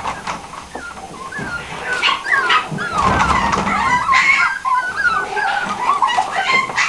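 Miniature pinscher puppies whining and yipping. Many short, high, wavering cries overlap one another and grow busier after about two seconds.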